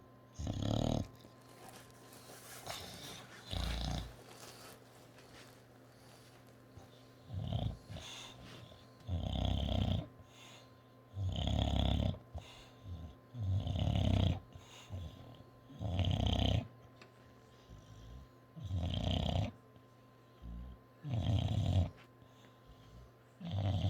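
English bulldog snoring in a steady rhythm, one snore about every two to two and a half seconds, with a lull of a few seconds after the second snore.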